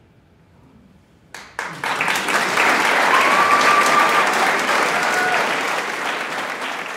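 Audience applause breaks out suddenly about a second and a half in and carries on steadily, with one long high-pitched call rising above it midway.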